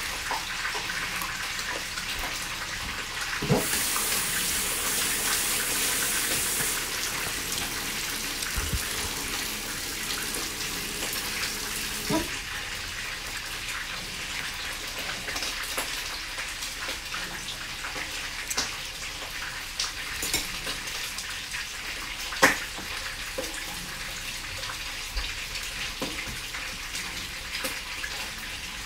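Fish frying in hot oil: a steady sizzle with scattered sharp crackles, one louder crack a little past the middle.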